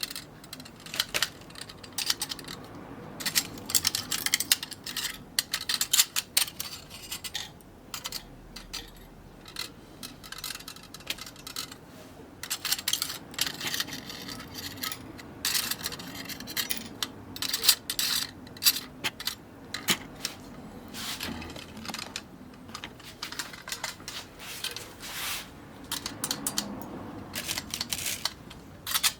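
Irregular metallic clinks and crackles in uneven bursts, the sound of metalwork being handled or worked.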